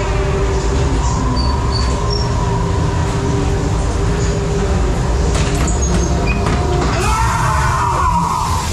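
Fairground ghost train car rumbling steadily along its track in the dark, with the ride's sound effects over it: a faint held tone, then swooping, wavering effects from about seven seconds in.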